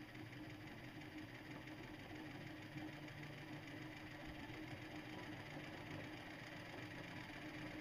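Faint, steady hum of the electric motor spinning a heavy vinyl record at low speed on low voltage, before the ramp-up.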